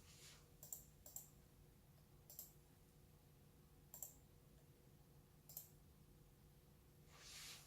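Near silence: room tone with a faint steady low hum and five faint, scattered clicks.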